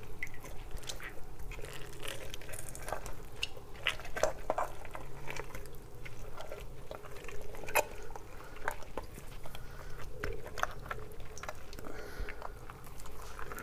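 Wet squelching and small irregular clicks of a hand working inside a plucked chicken's body cavity, pulling out organs such as the heart and lungs during gutting.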